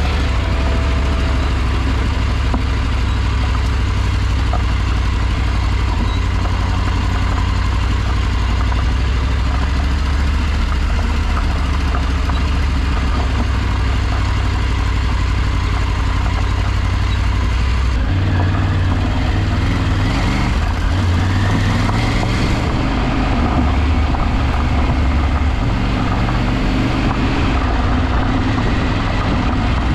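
Motor vehicle engine running steadily on the move, a deep low rumble throughout. About 18 seconds in, the engine note changes and grows rougher, as with a shift in load or speed.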